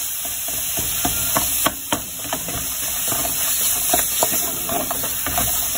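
Pork sausage meat starting to fry in an aluminium pot, with a steady sizzle, while a spoon scrapes and knocks against the pot many times as the meat is broken up.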